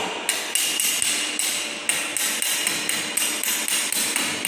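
Chipping hammer striking a freshly arc-welded lap joint to knock off the slag: quick metallic taps, about three to four a second, each with a ringing note.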